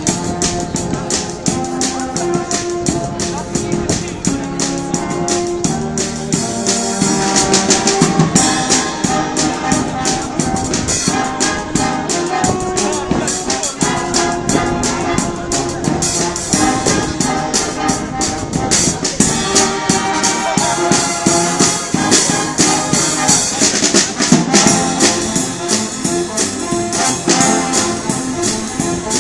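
Live band of brass and wind instruments, including a sousaphone, playing an upbeat tune over a brisk, steady drum and percussion beat.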